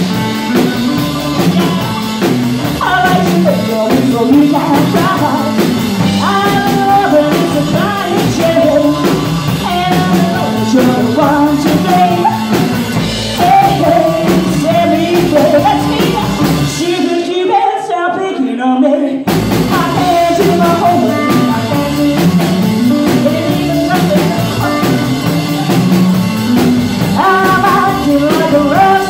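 Live rock and roll band: a woman singing lead over upright double bass, electric guitar and drum kit. About two seconds past halfway the bass and cymbals stop briefly before the band comes back in.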